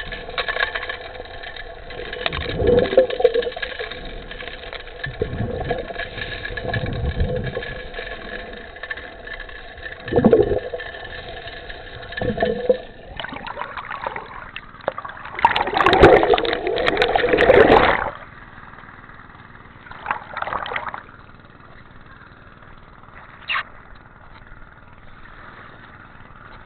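Gold suction dredge's engine and pump running steadily, heard underwater, with irregular heavy thuds of gravel tailings landing on the riverbed. About 13 seconds in the camera breaks the surface and loud splashing water takes over for several seconds, after which the dredge is heard more faintly.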